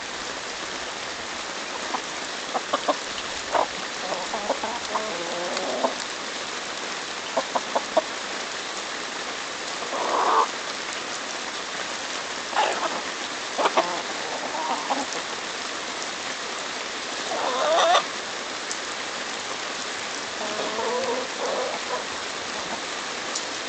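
A flock of Rhode Island Red and Buff Orpington hens clucking and giving a few louder drawn-out squawks as they crowd around a corn cob held out to them, over a steady hiss of rain. The loudest squawk comes about three-quarters of the way through.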